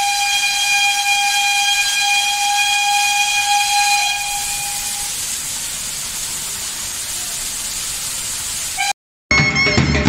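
Steam locomotive whistle blowing one long steady note over hissing steam. The whistle stops about five seconds in while the hiss goes on, then the sound cuts off abruptly near the end and music with drums begins.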